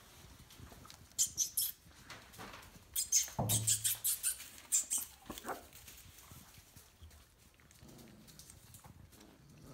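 Four-week-old puppies squeaking and yipping in short high-pitched bursts, in a brief cluster about a second in and a longer one around three to five seconds in.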